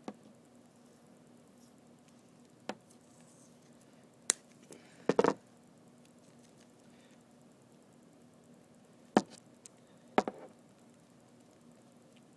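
Handling noise from a wire terminal and electrical tape roll being worked by hand: about six sharp, irregular clicks and knocks, with a short rattle about five seconds in, over a faint steady hum.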